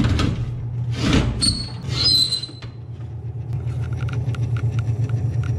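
Hermetic compressor of a True T-23F reach-in freezer running with a steady hum that the technician calls a little loud, suspecting liquid flood-back or a compressor starting to fail. Metal panel handling and scraping with a squeak in the first couple of seconds, then a fast, even rattle over the hum from about halfway in.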